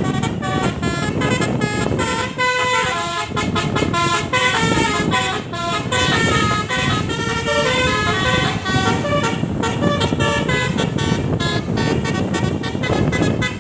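Bus telolet musical air horn, a roof-mounted set of many trumpets, playing a Minang melody as a quick run of notes stepping up and down, several horns sounding together over a steady low rumble.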